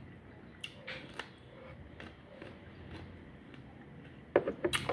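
Raw cucumber being bitten and chewed, with a few faint crunches and then a quick run of loud, crisp crunches near the end.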